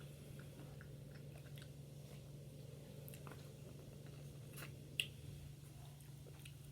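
Close-miked chewing of fried chicken: faint, scattered mouth clicks and smacks, with one sharper click about five seconds in, over a steady low hum.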